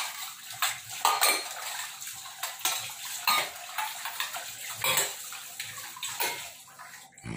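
Steel dishes and utensils clanking against each other and a stainless steel sink while being washed under a running tap, with water splashing. Several sharp clanks come at irregular intervals over the steady sound of running water.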